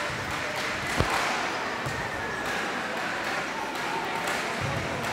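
A futsal ball being played on an indoor court: one sharp kick about a second in, then softer ball thuds, over spectators' chatter in the hall.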